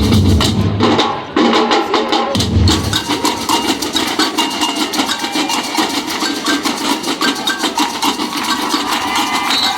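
Batucada drum ensemble playing a fast, driving rhythm of dense, rapid strokes on the drums. The deep bass drums drop out about three seconds in, leaving the lighter drums and percussion.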